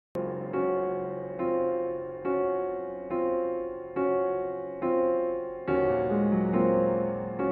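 Piano playing slow, gentle chords, a new chord struck about once a second and each fading before the next, starting abruptly out of silence.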